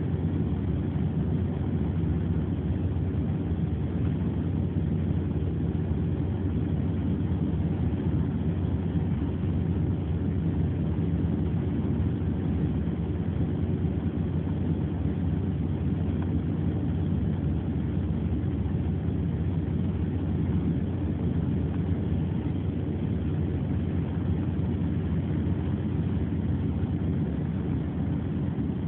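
Steady low rumble of a car heard from inside its cabin, engine and road noise running on without a break.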